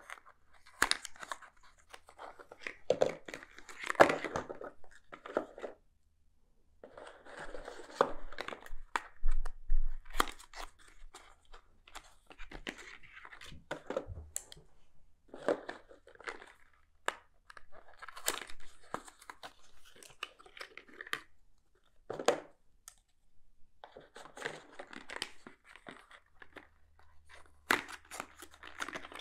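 Thin card brush boxes being handled and opened by hand: rustling and scraping of cardboard in irregular bursts, with short pauses between them.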